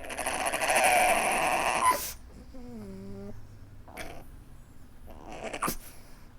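Pug whimpering and snorting: a loud, rough snuffling breath for about two seconds, then a short thin whine that dips in pitch, then a few softer snuffles.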